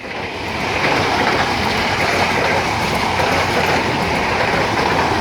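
Ex-Japanese electric multiple unit commuter train passing close at speed: a steady rush of wheel and rail noise with clickety-clack, building over the first second and then holding.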